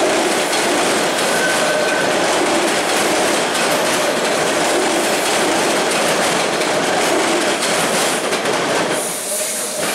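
Toronto TTC T-1 subway train running past, a steady wheel-on-rail noise that starts to fall away as the last car goes by near the end.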